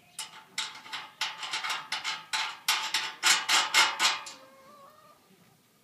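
Wrench tightening the nut on the hub of a steel paddy wheel: a quick run of sharp metallic clicks, about three or four a second, loudest toward the end and stopping about four seconds in.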